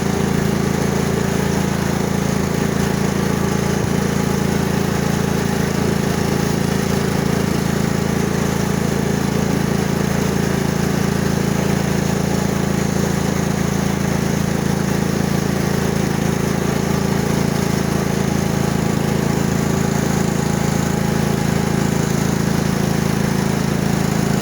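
Riding lawn mower's engine running steadily as the mower is driven up a hill, pulling a load.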